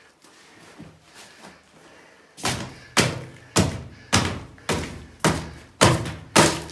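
Eight heavy, dull strikes at a steady pace of about two a second, starting about two and a half seconds in: knocking a section of old sewer pipe loose from the cellar floor.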